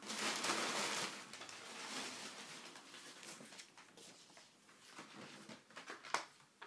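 Packing paper rustling and crinkling as it is pulled out of a cardboard box, loudest in the first couple of seconds, then lighter crackles of paper and packaging, with a sharp knock about six seconds in as a boxed ball is lifted out.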